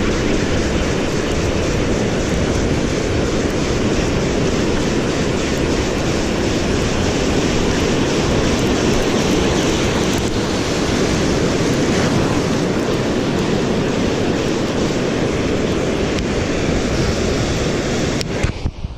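Ocean surf washing in over the sand at the shoreline, a steady rush of water with wind buffeting the microphone. The sound drops away abruptly near the end.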